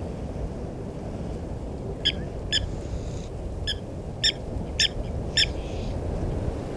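A bird calling six short, sharp notes about half a second apart, over a steady low rumble of wind on the microphone.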